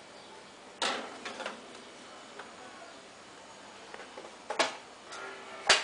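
Metal baking pan clanking against the oven rack and oven as it is slid into a gas oven: a sharp knock about a second in, a few lighter taps, and two louder knocks near the end, the last the loudest.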